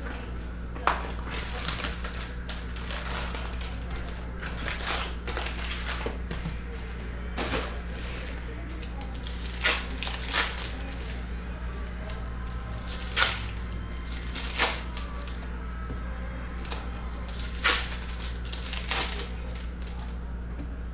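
Foil trading-card pack wrappers being torn open and crinkled by hand, in sharp irregular crackles, over a steady low hum.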